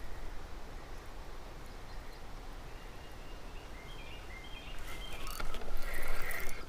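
Steady low rush of river water spilling over a small dam, with a few short bird chirps in the last couple of seconds.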